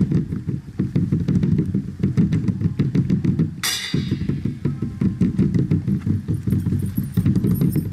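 Bass drum beaten fast and steadily into a rumbling roll, with a short cymbal-like crash about four seconds in.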